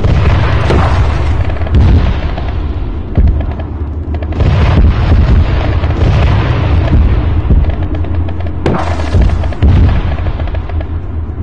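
Loud, distorted battle audio: several sharp bangs of explosions and gunfire over a continuous heavy low rumble.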